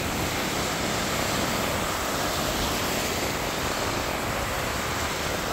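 Small waves breaking and foamy surf washing through the shallows, a steady rushing noise.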